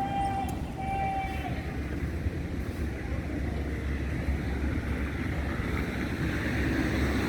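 City street traffic with a heavy engine running steadily. A held horn note sounds twice in the first second and a half, and a passing vehicle's noise swells near the end.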